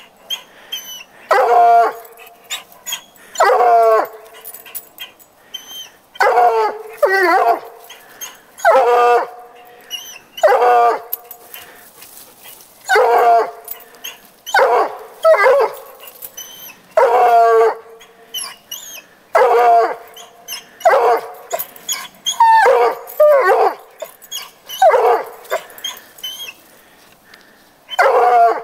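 Coonhound baying treed: loud, drawn-out calls repeated every second or two, the tree bay that tells the hunter the quarry, here a cat, is up the tree.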